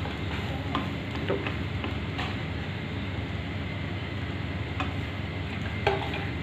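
Sliced onions and spice powders frying in a non-stick pan with a steady sizzle while a wooden spatula stirs and scrapes them, knocking lightly against the pan a few times.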